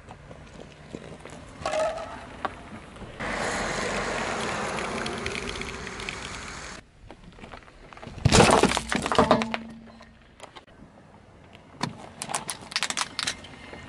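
Aerosol shaving foam hissing steadily out of its can for about three and a half seconds. Then comes a loud crunch from a car tyre pressing on the can, and near the end a quick run of sharp cracks as the tyre rolls onto plastic disposable lighters.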